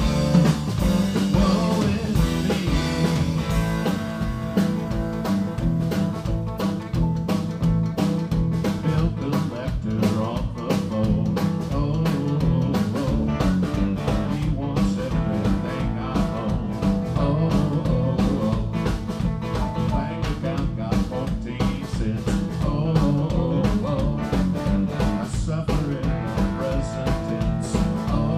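Live band playing a song: electric guitars, electric bass and drum kit with a steady beat, and a man singing.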